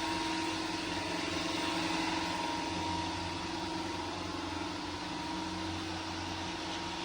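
Electric fans running with a steady hum.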